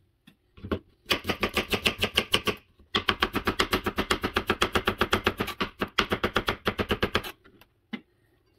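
Chef's knife rapidly mincing onion on a cutting board: fast, even chops of the blade against the board. The chopping comes in two long runs with a short pause between them, then stops about a second before the end, leaving a few single taps.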